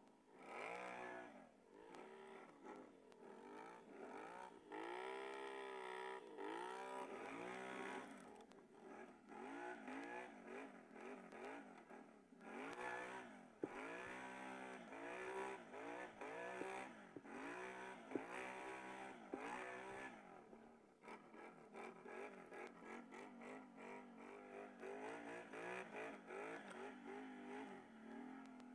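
Can-Am Renegade ATV's V-twin engine revving up and down again and again under load as it ploughs through deep snow in two-wheel drive. There are a couple of sharp knocks midway.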